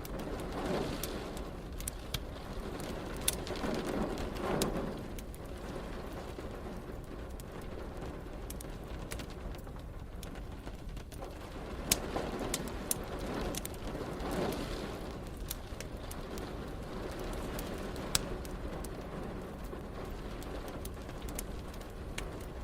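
Wood fire crackling with scattered sharp pops over a steady patter of rain, while low rumbles of thunder swell and fade a few times.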